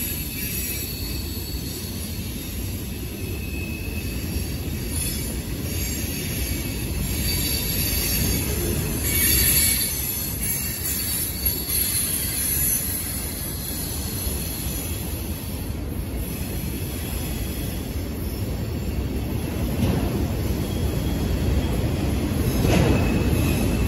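Freight cars of a mixed-freight (manifest) train rolling past: a steady rumble of steel wheels on the rails with faint high wheel squeal, swelling briefly about ten seconds in and again near the end.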